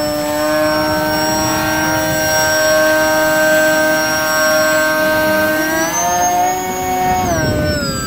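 Electric motor and propeller of a small foam RC biplane whining at a steady pitch, then rising about three-quarters of the way through and gliding back down near the end.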